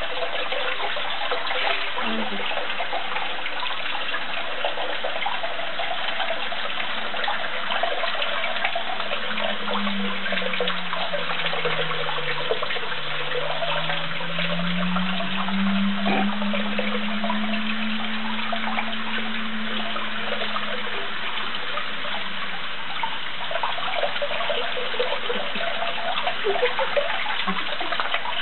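Kitchen tap running steadily, the stream splashing into cupped hands and over a budgerigar being rinsed beneath it.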